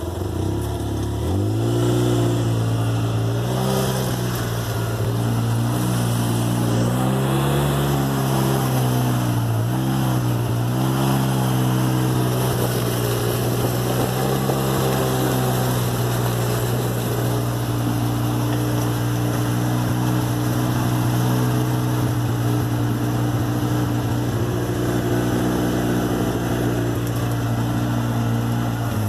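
Side-by-side UTV engine running as it is driven, a steady drone whose pitch dips and rises again a few times as the throttle eases and opens, heard from inside the cab.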